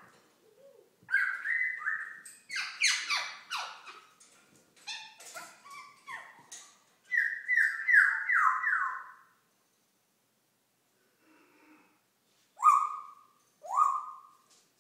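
African grey parrot calling: a long run of whistles and squawks, much of it short falling notes in quick series, then a pause and two single falling calls near the end.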